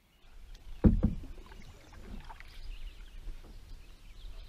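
Canoe being paddled on a lake: paddle strokes and water sounds over a low rumble. Two loud, low thumps come close together about a second in.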